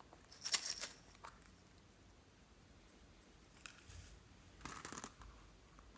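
Crackly plastic clicks and snaps as a small apple-shaped plastic container is handled and opened, loudest in a quick cluster about half a second in, followed by two softer crinkly bursts near the end.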